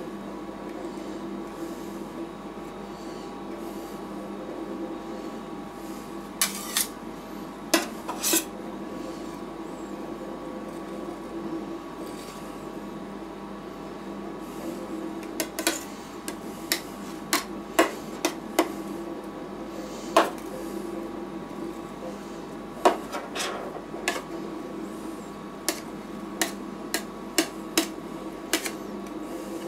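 Metal spatulas scraping and sharply tapping on the stainless steel freezing plate of a rolled-ice-cream machine as the ice cream base is spread and chopped, the taps coming in clusters, over the steady hum of the machine running.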